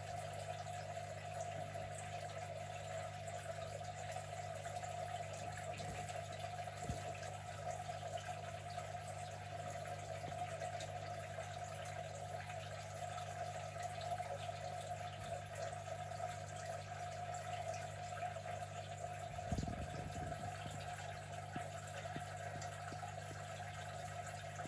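A steady low hum with an even rushing noise under it, unchanging throughout, with a brief low bump about twenty seconds in.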